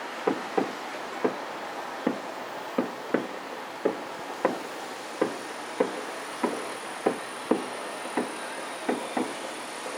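Distant aerial fireworks shells bursting in a quick, fairly even series of sharp booms, about one and a half a second, each with a short echoing tail, over a steady background hiss.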